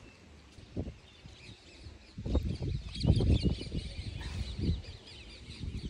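Small birds chirping rapidly in the background, with a run of low muffled thumps and rumbles close to the microphone from about halfway through.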